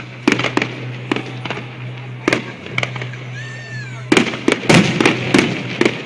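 Aerial fireworks exploding in a string of sharp bangs and crackles, coming thickest in the last two seconds, over a steady low hum.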